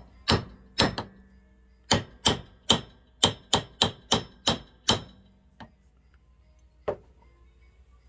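Hammer tapping on metal, a quick run of about a dozen light blows, each with a short metallic ring, as a bronze washer is domed over a steel trailer-hitch ball; two lighter, spaced taps follow near the end.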